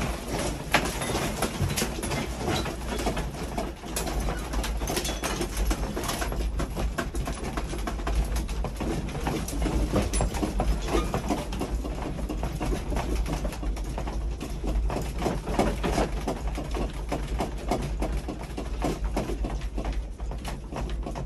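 Room contents rattling and creaking as an apartment shakes in a strong earthquake: a continuous low rumble with dense, irregular clicks and rattles.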